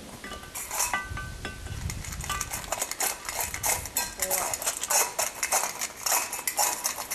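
Dog's door potty bell chiming in several short rings as it is knocked, then a busy run of quick clinks and rattles.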